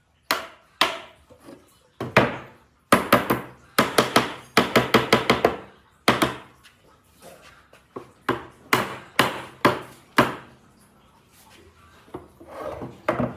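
Repeated sharp blows of a tool striking wood, some single and some in quick runs of several per second.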